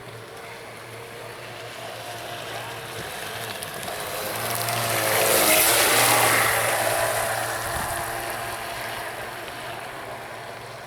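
Vintage SHG Shadow RC boat with a 3650 brushless motor running across the water and passing close by: the motor's hum and the hiss of the hull's spray grow louder to a peak about halfway through, then fade away.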